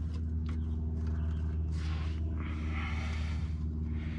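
A steady low hum throughout, with a soft rustling hiss lasting over a second about two seconds in.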